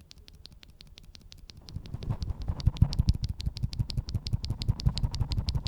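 Rapid typing on a mechanical keyboard fitted with C³Equalz x TKC Dragon Fruit tactile switches: a quick, even run of clicky keystrokes with a low thock under each, about ten a second, faint at first and louder from about two seconds in.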